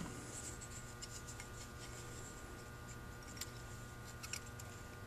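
A few faint, light ticks and clicks of small carburetor parts handled in the fingers, as a wire clip is fitted onto the float needle of a Holley 1904 one-barrel carburetor, over a steady low hum.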